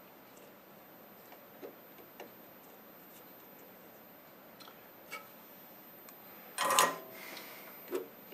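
A few faint clicks and taps of hand soldering work on a circuit board. About two-thirds of the way through comes one brief, louder clatter as the soldering iron is taken off the board, followed by a smaller click near the end.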